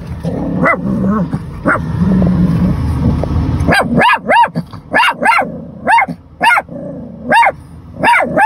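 Chihuahua barking inside a car, at someone passing outside: after a few seconds of lower, rougher sound comes a run of about ten sharp, high barks, often in quick pairs, starting about four seconds in.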